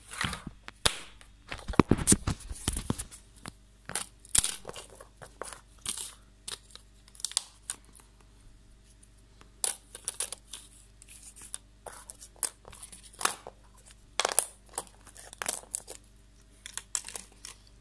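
A mobile phone being taken apart by hand: irregular clicks, snaps and short scraping sounds from its plastic and metal parts, thickest in the first few seconds.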